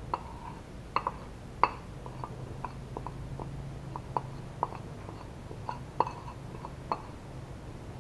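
A metal spoon clinking and scraping against a ceramic plate while pushing flour and chopped herbs off it: an irregular run of light clinks, about two a second, each with a short ring.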